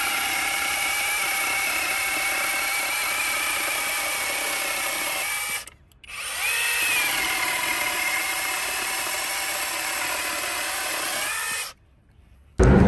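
Cordless 8-inch mini chainsaw's electric motor running as the chain cuts through a thin wooden log. It stops suddenly about halfway, starts again with a rising whine that dips a little as the chain bites into the wood, and stops suddenly again near the end.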